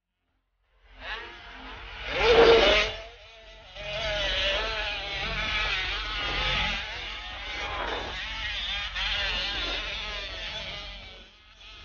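Motocross motorcycle engines revving hard, starting about a second in: one bike passes loudly about two seconds in, then several engines rise and fall in pitch together as bikes climb and jump the sand hill.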